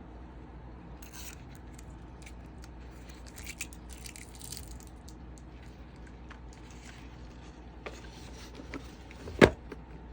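Hands handling an unboxed headset and its packaging: soft rubbing and scraping with scattered small clicks. One sharp knock comes near the end.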